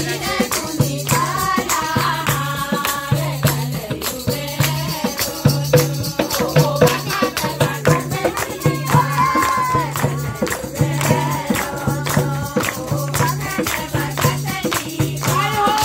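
Group of women singing a Holi folk song in chorus to steady rhythmic handclaps and hand drums, with a low drum stroke repeating on the beat.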